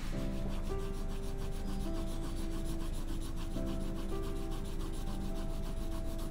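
Pencil shading on drawing paper: quick, repeated scratchy strokes of graphite as the side of a cube is hatched in. Soft background music with held notes plays under it.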